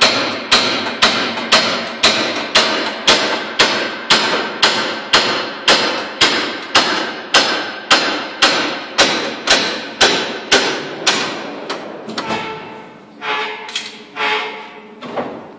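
Hammer blows on a wooden boat hull, struck at a steady rhythm of about two a second. The blows grow weaker after about ten seconds and give way to a few uneven knocks.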